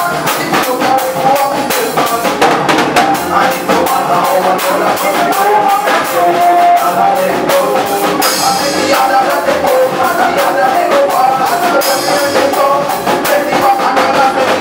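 Soca band playing: a busy, driving drum-kit beat under melody lines.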